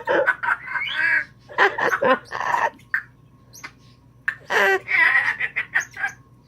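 Timneh African grey parrot mimicking human laughter, in two bouts with a short pause between them.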